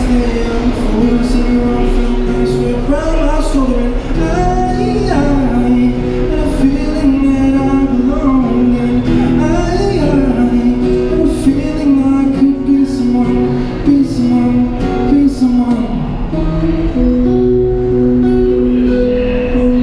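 A man singing a song into a microphone to his own acoustic guitar accompaniment. The vocal line drops out about three-quarters of the way through while the music carries on with steadier held notes.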